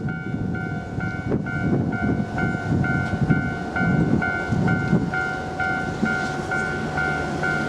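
Japanese level-crossing warning bell ringing its electronic "kan-kan" tone a little over twice a second, with a train rumbling past over the rails, loudest in the middle.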